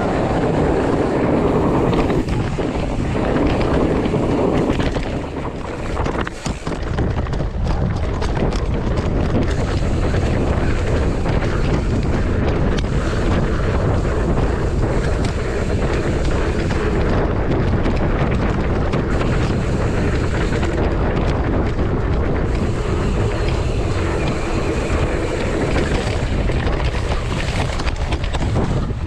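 Wind buffeting an action-camera microphone during a fast mountain-bike descent, with the bike clattering and knocking over rough ground.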